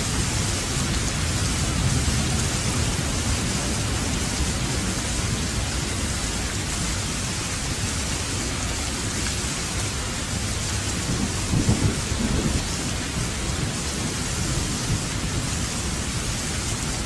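Thunderstorm: steady heavy rain with low rolling thunder, which swells loudest about two-thirds of the way through.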